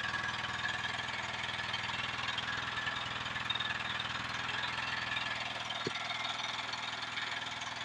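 Biogas-fuelled generator engine running steadily, making electricity.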